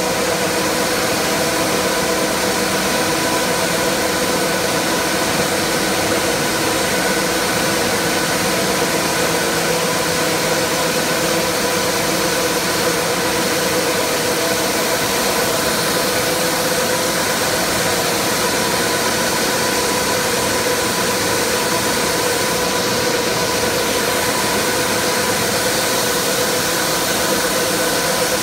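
Chocolate ball mill line and the factory machinery around it running steadily: a constant mechanical hum of several held tones over a broad even hiss, with no change or knocks.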